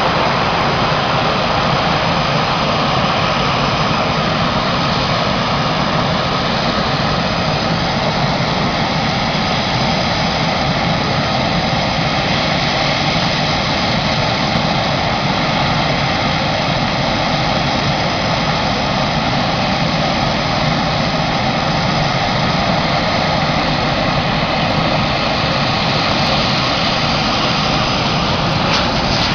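Military fast-jet engines running steadily on the runway: a loud, even jet roar with a faint steady whine in it that holds at the same level throughout.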